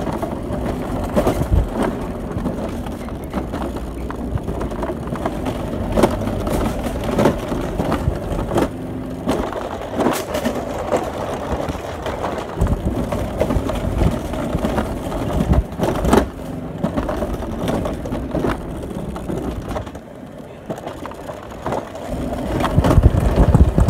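Mountain coaster sled running down its tubular steel rail: a steady rolling rumble of the wheels with frequent clacks and knocks. It dips briefly about twenty seconds in, then grows louder near the end.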